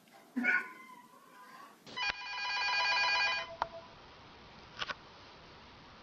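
A cat meows once near the start. About two seconds in, an electronic telephone ringer trills for about a second and a half, followed by a couple of faint clicks.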